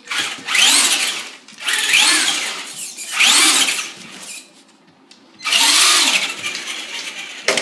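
RC car motor revving in four short throttle bursts, its whine rising and falling in pitch with each burst.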